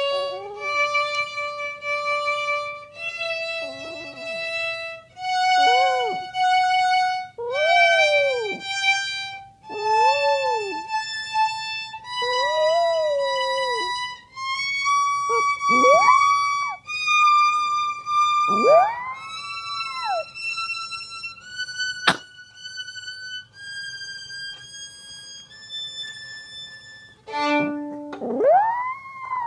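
Violin playing a slow rising D major scale, one held note every second or two, while a dog howls along in short rising-and-falling arcs between the notes.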